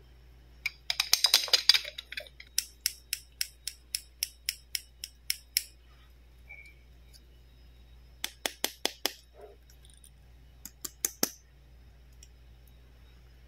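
Hard plastic clicks from a toy doctor set's plastic syringe and plastic scissors being worked by hand. A quick cluster of clicks comes about a second in, then a steady run of about four clicks a second, then two short clusters of clicks near the end.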